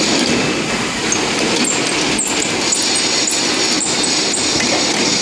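Chamber filter press's automatic plate shifter running along its side rail as it pulls the filter plates apart for cake discharge: a steady mechanical running noise, with light clicks about twice a second from about a second and a half in.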